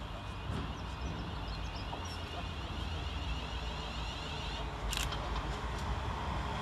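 Class 350 Desiro electric multiple unit running in toward the platform to stop, a low rumble that slowly grows louder as it nears. A sharp click about five seconds in.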